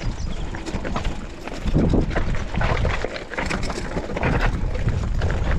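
Wind buffeting the microphone over the rattle and clatter of a mountain bike riding a rough dirt trail, with scattered knocks and clicks.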